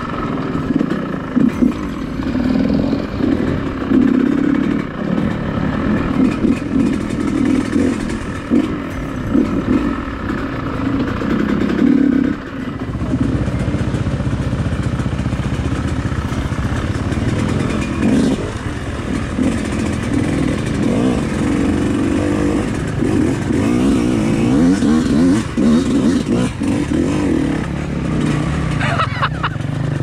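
Yamaha YZ125X two-stroke dirt bike engine running and revving up and down on the trail. A deeper steady drone joins about twelve seconds in.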